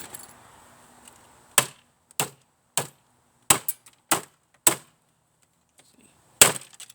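Sharp blows struck repeatedly on a piece of old electronic equipment being forced open for scrap, about eight in all, roughly every half second, with a short pause before a last pair near the end.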